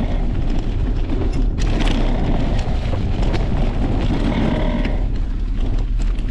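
Wind buffeting an action camera's microphone as a mountain bike rides fast down a dirt trail, with the steady rumble of tyres rolling over dirt and leaves and frequent knocks and rattles from the bike over bumps.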